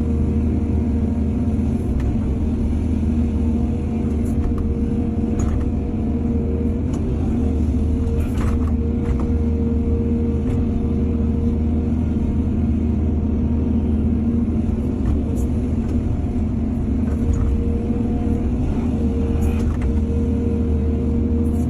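Excavator's diesel engine running steadily with a constant whine over it, and a few short knocks and scrapes, the strongest about eight seconds in.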